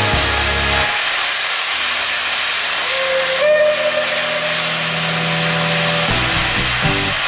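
Steam locomotive venting steam with a loud, steady hiss. About three seconds in, a steam whistle sounds one held note for about three seconds, stepping up slightly in pitch as it opens.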